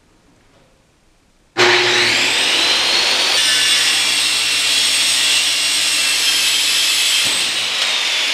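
Corded circular saw switching on about one and a half seconds in and running steadily as its blade cuts through a plywood panel, with a high motor whine that sags a little in pitch near the end.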